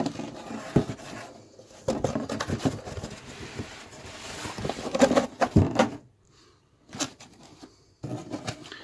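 Cardboard box and plastic packaging being handled and opened: a run of rustles, scrapes and knocks, then a few isolated clicks near the end.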